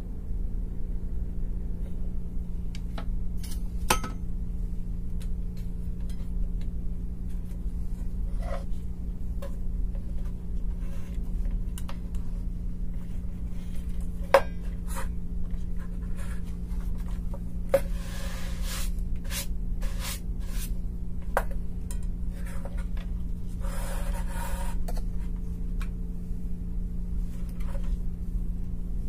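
Hands working on amplifier wiring at a workbench: scattered small clicks, taps and short scrapes of wires and tools, with two longer rubbing scrapes past the middle. A steady low hum runs underneath.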